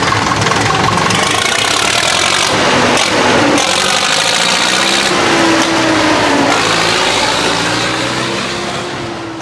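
1953 Steyr 280 tractor's four-cylinder diesel engine pulling away and driving past, its speed rising and falling. It fades near the end as the tractor moves off.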